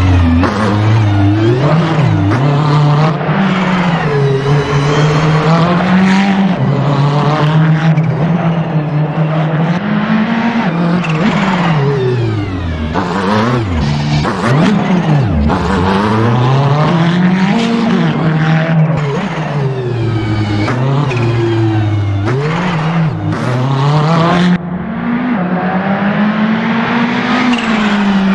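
Ferrari 488 GT3's twin-turbo V8 driven hard: engine pitch climbing through the gears with quick upshifts, then falling away under braking and downshifts, again and again, with a very low-rev dip about halfway through.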